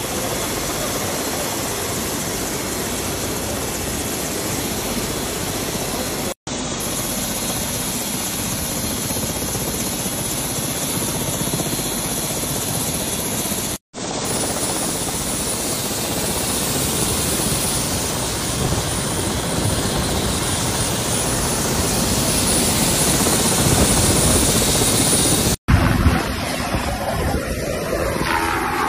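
Helicopter running close by with its main rotor turning, a steady loud rush that grows louder in the second half; near the end it lifts off. Three instant drop-outs break the sound where clips are joined.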